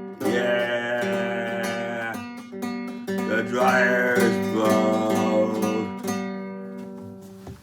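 Acoustic guitar strummed and picked in a closing run of chords, which the player calls a little out of tune. The playing stops suddenly near the end.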